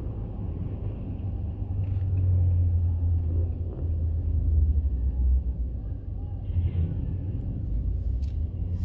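Low, steady rumble of car engines, swelling for a few seconds in the middle.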